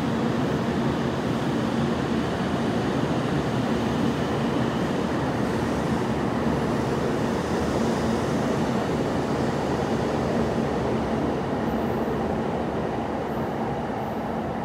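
A train running with a steady rumble and a constant low hum, easing off slightly near the end.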